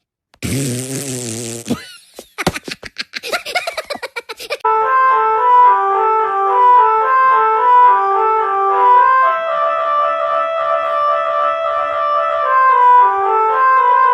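Telolet-style musical bus horn. A short buzzy blast and a patter of rapid clicks come first, then from about four and a half seconds in the horn plays a steady tune, several held notes sounding together and stepping from pitch to pitch.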